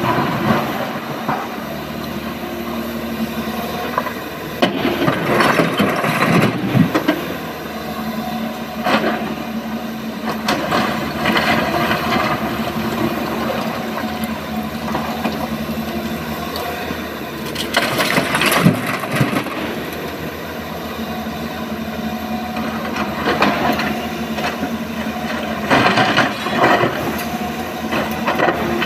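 SANY SY225 excavator's diesel engine running steadily under load, with loud crashes and clatters of broken rock several times as the bucket digs stone and tips it into a Tata Prima dump truck's steel bed.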